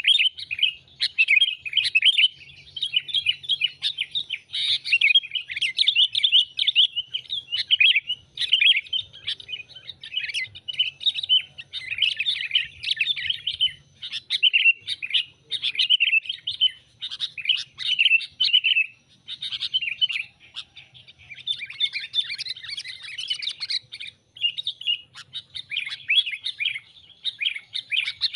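Sooty-headed bulbuls chirping busily and without let-up, a dense run of short overlapping chirps and bubbly phrases with only brief pauses. It is a bulbul call used as a lure to draw wild bulbuls to a perch.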